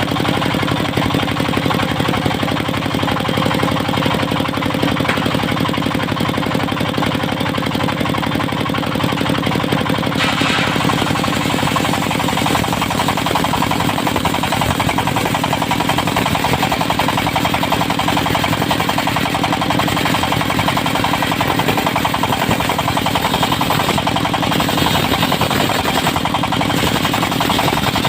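A portable circular sawmill runs steadily, driven by its diesel engine with fast, even firing pulses, while the saw blade cuts teak. The sound changes about ten seconds in and stays fuller and brighter after that.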